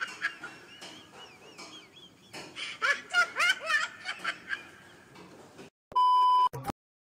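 High-pitched laughing and squealing. Near the end comes a loud, steady test-tone beep lasting under a second, the TV colour-bars bleep.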